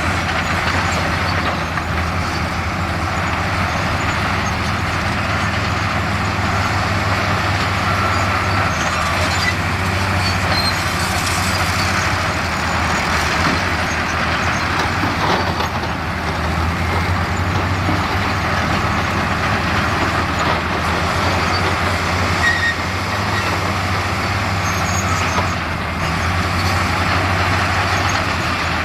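Heavy diesel earthmoving machinery running steadily: a deep engine drone under a constant mechanical clatter.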